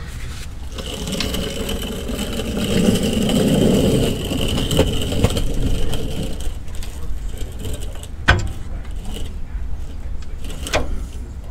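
A vehicle engine swelling and then fading over about six seconds, followed by two sharp knocks about two and a half seconds apart.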